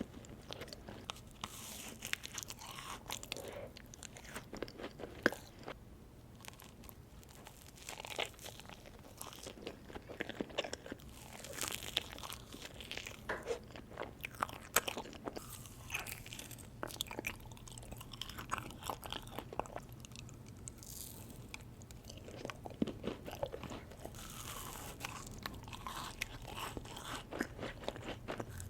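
Close-miked eating sounds of ice cream: irregular crunchy bites and chewing, many small crackles coming unevenly.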